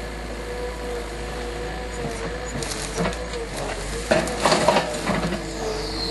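Skid steer engine running with a steady whine under load while working an FFC root grapple. From about two and a half seconds in, a run of sharp cracks, snaps and knocks comes, loudest a little past the middle, as the grapple handles the dead tree.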